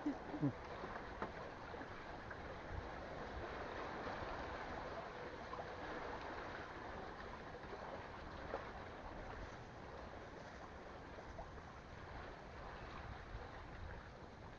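Steady wash of sea water, an even rushing noise that fades a little toward the end, with two short knocks at the very start.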